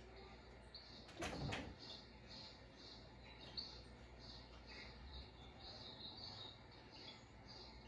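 Faint, high chirps from the TV's mouse video soundtrack, repeating about twice a second. A short scuffling knock about a second in comes from the cat moving on the TV stand against the screen.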